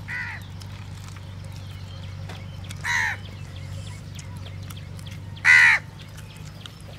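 Crow cawing three times, about two and a half seconds apart, the last call the loudest.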